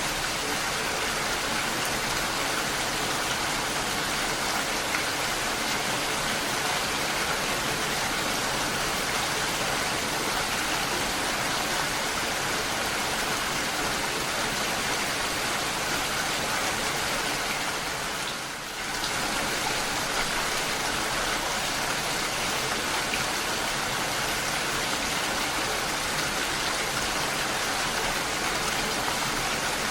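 Steady rain falling, an even hiss, with a brief dip in level about eighteen seconds in.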